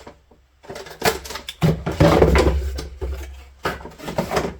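Handling noises of small objects on a workbench: scattered clicks and knocks with rustling, and a louder stretch of rubbing with a low rumble about a second and a half in, lasting about a second and a half.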